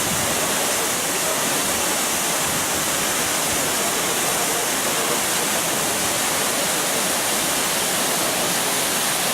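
Steady rushing roar of a waterfall, with water crashing continuously and no breaks.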